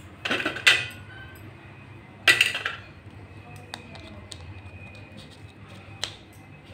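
Kitchen clatter: two short bursts of hard objects knocking together, about two seconds apart, then a few light clicks.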